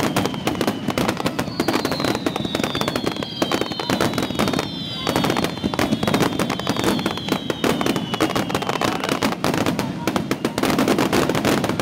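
Dense fireworks barrage: many shells bursting at once in a continuous run of bangs and crackling. Several whistles falling in pitch sound over it.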